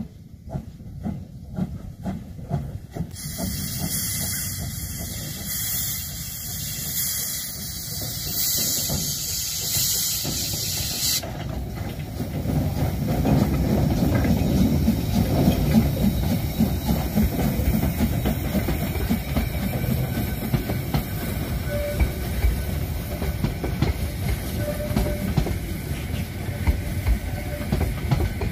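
Narrow-gauge 2-10-2 tank steam locomotive 99 7241-5 working with its train. A loud hiss of escaping steam runs from a few seconds in until about a third of the way through, then gives way to louder, regular exhaust beats and the rolling rumble of the train as it pulls away.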